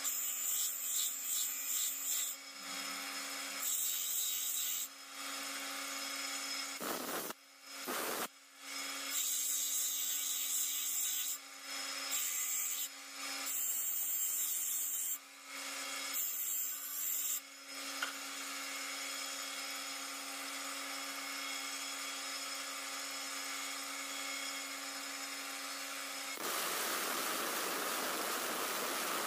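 Steel knife blade ground against a large spinning grinding wheel: a hissing rasp of grinding in repeated passes of a second or two, over the steady hum of the wheel's drive. Near the end a rougher, louder grinding noise takes over.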